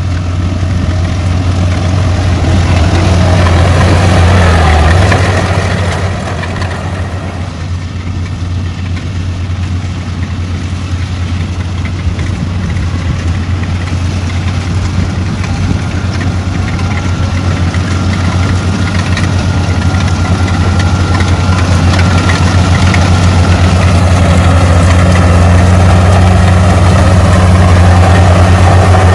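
Kubota rice combine harvester running while cutting and threshing: a steady low engine drone that eases off briefly about six seconds in and grows louder toward the end.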